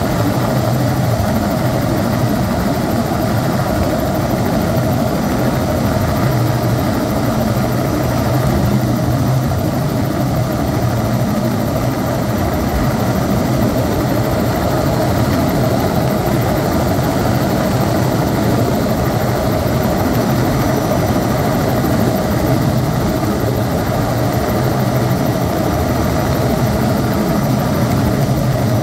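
Helicopter in flight, heard from aboard: a loud, steady drone of engine and rotor that does not change.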